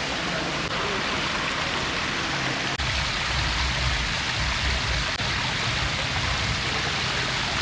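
Shallow creek water running steadily over a concrete channel, a continuous rushing splash.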